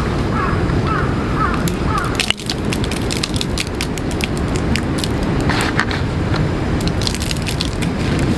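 Wind buffeting the microphone: a steady low rumble with many small crackles. A few short chirps sound in the first second or so.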